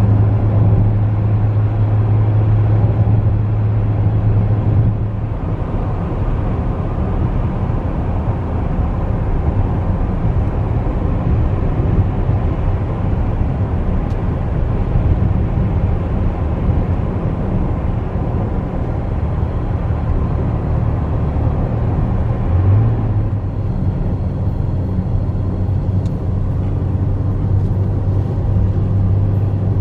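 Steady engine drone and tyre rumble heard from inside the cabin of a moving car. About two-thirds of the way through, the engine note rises briefly.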